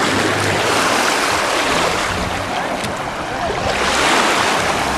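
Small sea waves washing onto a sandy beach: a steady rush of surf that swells twice, with wind rumbling on the microphone.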